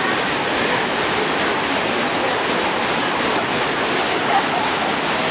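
Steady rush of cascading water from a river-rapids raft ride, an even noise with no breaks.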